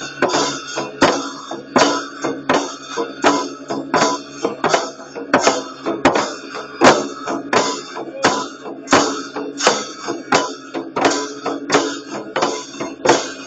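Laced barrel hand drum beaten in a steady rhythm, about three strokes a second.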